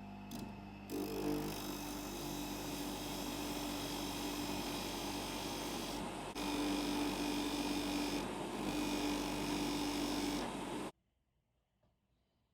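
Bench polishing motor spinning a cloth polishing mop while the mop is dressed flat: a steady hum under a rushing noise. It grows louder about six seconds in and cuts off suddenly near the end.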